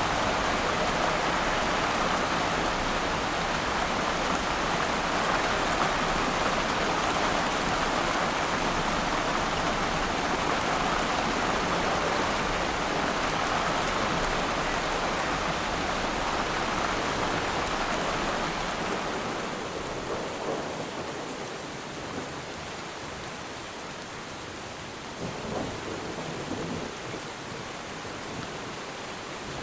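Steady rain falling on water, with a low rumble of distant thunder underneath. About two-thirds of the way through, the rumble dies away and the rain grows quieter, with a brief swell near the end.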